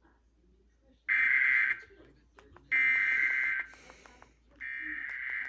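Emergency Alert System SAME header: three bursts of digital data tones about a second and a half apart, the last one quieter. These bursts open an EAS test alert broadcast over the radio.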